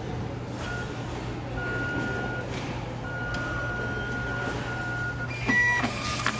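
Steady low machine-room hum with several plain beeps of varying length. About five and a half seconds in, a Zebra ZT410 thermal label printer starts up and feeds out barcode labels.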